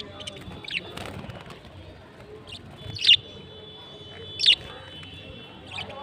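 Caged budgerigars chirping: short, sharp high calls every second or so, with two louder ones about three and four and a half seconds in.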